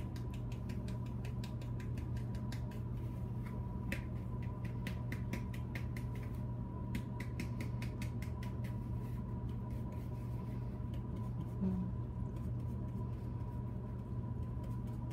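Dry plaster casting investment poured slowly from a bowl into water, giving a stream of small irregular ticks and crackles. A steady low hum and a faint steady tone run underneath.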